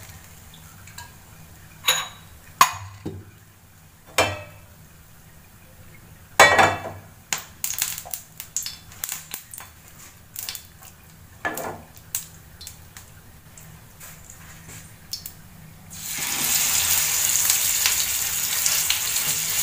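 A few sharp knocks and clinks of kitchenware, then near the end a masala-marinated Indian mackerel laid into hot oil in a nonstick frying pan starts sizzling loudly and keeps on sizzling.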